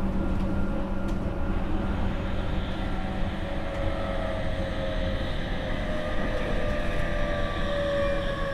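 Tokyu 5000 series electric train heard from inside the car: the Hitachi IGBT inverter-driven traction motors whining in several tones that rise slowly as the train gains speed, over the steady rumble of the wheels and running gear. The motor whine is of a loud, screeching type.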